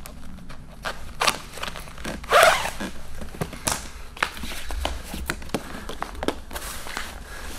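A tan webbing trouser belt being unbuckled and pulled out through its belt loops, with a rasping swish a little over two seconds in, then handled and laid across a leg: a string of small clicks, scuffs and fabric rustles.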